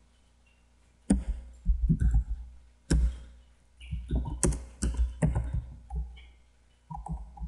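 Typing on a computer keyboard: irregular keystroke clicks in quick bursts, starting about a second in.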